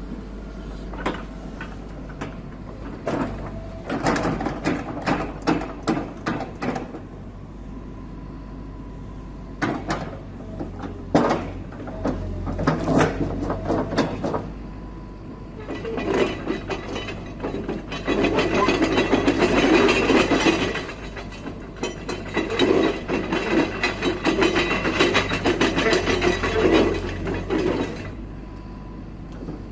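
Kobelco SK135SRD hydraulic excavator running, its diesel engine humming steadily under repeated metallic clanks, clicks and creaks as the machine is worked, busiest in two long stretches in the second half.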